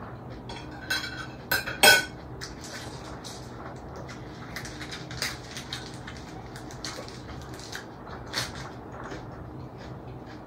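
A metal spoon clinking against a ceramic plate three times, about one to two seconds in, the last one the loudest. After that come quieter scattered crackles as lettuce leaves are handled and food is chewed.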